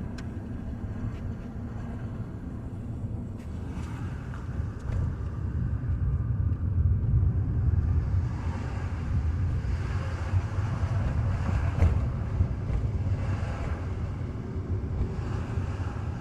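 2010 Toyota Matrix driving, with steady low road and engine rumble and stretches of rougher grinding noise about halfway through and again a little later. The grinding is the brake noise being demonstrated, which the driver puts down to something grinding against the rotors.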